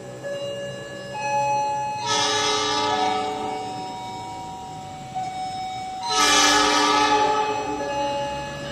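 Diesel locomotive horn sounding two blasts, each about a second and a half long, some four seconds apart.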